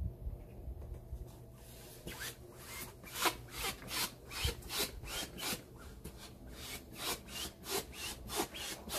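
Small hand air pump inflating a gym ball: evenly repeated rasping whooshes of the pump strokes, about three a second, starting about two seconds in.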